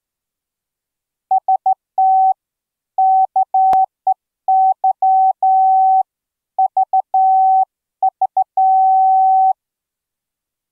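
Morse code sidetone from the ehoCW software keyer, sent by hand on a straight key through the AD5DZ USB MIDI interface. A single steady mid-pitched beep is keyed on and off in dots and dashes, in four groups. There is one faint click partway through.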